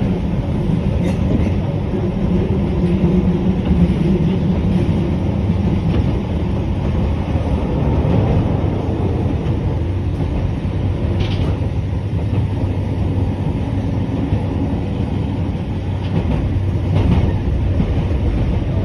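Eizan Electric Railway train running along the track, heard from inside the front car: a steady rumble of wheels and motors, with a few faint clicks from the rails.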